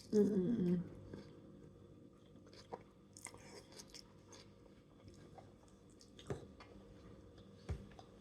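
Close-up eating sounds: a brief hum or murmur at the start, then soft chewing of a rice-and-bean veggie bowl with scattered small clicks and crackles.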